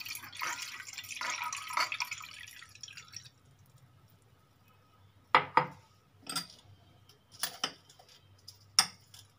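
Water poured from a glass into a bowl, a splashing trickle that tails off after about three seconds. Then several sharp light clicks and knocks of utensils and dishes being handled.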